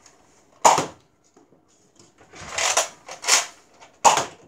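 Nerf blaster mechanism clacking: a sharp plastic snap about half a second in and another near the end, with softer rattling noises in between.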